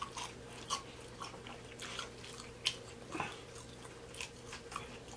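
Close-miked chewing of fried food, with scattered soft crunches and mouth clicks.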